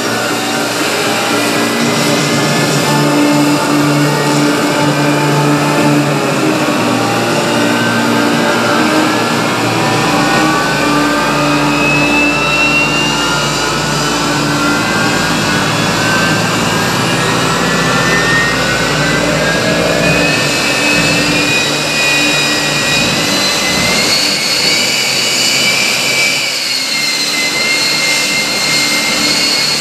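Jet engine of a jet-powered Kenworth show truck running while the truck stands still: a loud, steady turbine roar with several whines that climb in pitch through the middle and level off near the end as the engine spools up.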